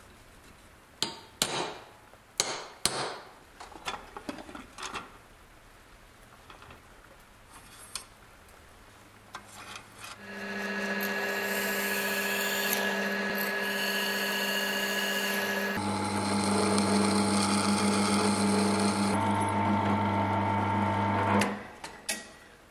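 A few sharp clicks and knocks in the first five seconds, then a drill press runs steadily, boring holes through the thin metal wing of a scale-model jet. Its tone changes about halfway through, and the motor stops about a second before the end.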